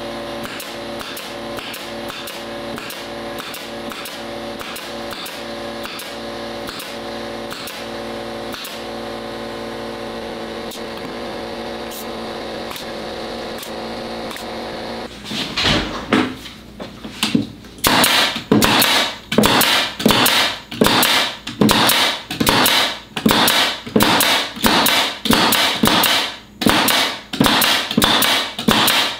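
An air-powered nail gun fires rapidly into wood, sharp loud shots about one to two a second, starting about halfway through. Before the shots there is a steady droning background with a faint regular ticking.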